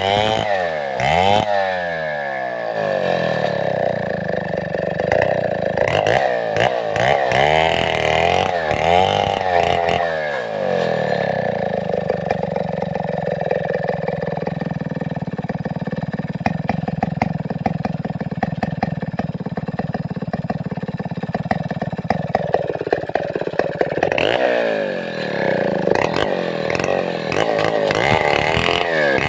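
Stihl 070-pattern two-stroke chainsaw revving up and down over and over, then held at a steady speed for about thirteen seconds in the middle before revving up and down again.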